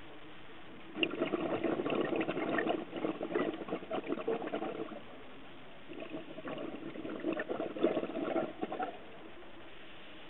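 Scuba diver's exhaled bubbles bubbling out of the regulator underwater in two bursts of a few seconds each, over a steady faint hiss.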